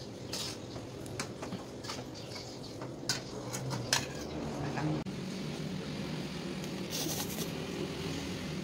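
Serving utensils clinking and scraping against a metal wok and a ceramic bowl as noodle soup is dished up: a few sharp clinks in the first half, the loudest about four seconds in, over a steady low background hum.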